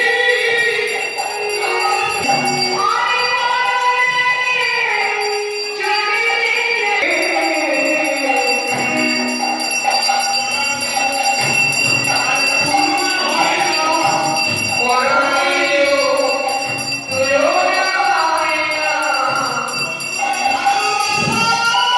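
Devotional song: voices singing a melody over a steady jingling, ringing accompaniment.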